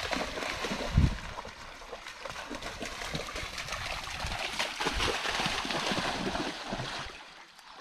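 A dog splashing and bounding through a shallow stream, water spraying and trickling, with a sharp thump about a second in. The splashing builds again in the middle and fades near the end.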